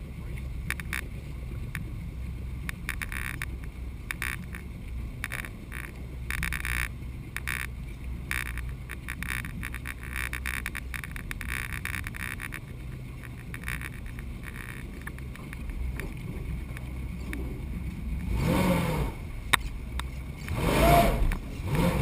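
V8 jet boat engine idling with a steady low hum, while water laps and splashes against the hull right beside the microphone. Near the end an engine is revved up and back down twice in quick succession, the loudest part.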